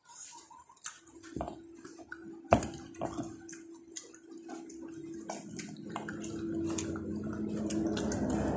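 Hands peeling the skins off boiled bananas: scattered soft, wet clicks and ticks as the peel is pulled away. From about halfway, a low motor-vehicle rumble grows steadily louder.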